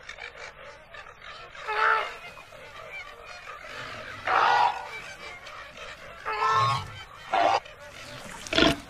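A goose honking about five times, short pitched calls a second or two apart, the second one longer.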